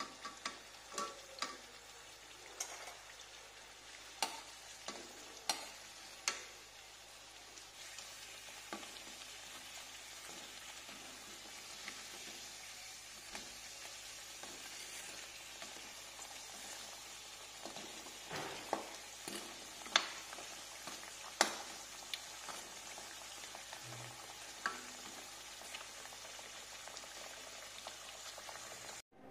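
Potato slices frying in hot oil in a wok, a steady sizzle, with a metal spatula clicking and scraping against the wok now and then as the slices are turned.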